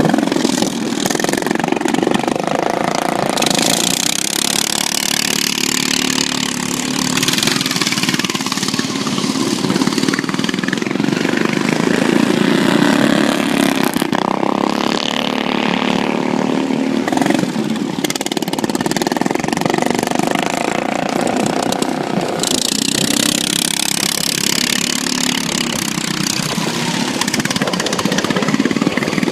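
Several stock-class racing lawn mowers running at speed, their small engines swelling and fading as they pass and corner, with a hiss over them at times.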